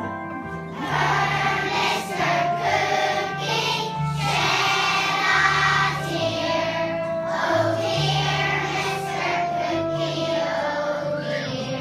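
Children's choir singing a song over instrumental accompaniment; the voices come in about a second in.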